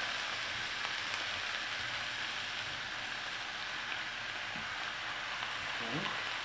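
Raw chicken pieces frying in a hot pan alongside fried onions: a steady, even sizzle.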